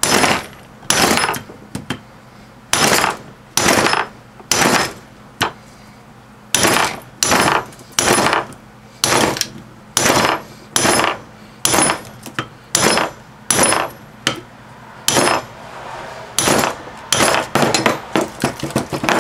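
Hammer blows on a metal punch, driving the copper winding out of a microwave oven transformer's steel core held in a bench vise: about twenty sharp metal-on-metal strikes, roughly one a second, quickening into a run of rapid taps near the end.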